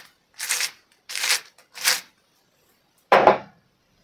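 Three quick rasping strokes about two a second as salt and parmesan are worked by hand into the pesto ingredients, then one louder knock about three seconds in.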